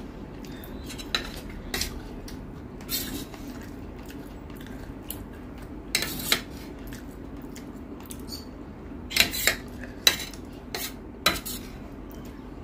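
Steel serving spoon clinking and scraping against a stainless-steel bowl and plate as curry is scooped and served: a dozen or so sharp metallic clinks, bunched about six seconds in and again between nine and eleven seconds.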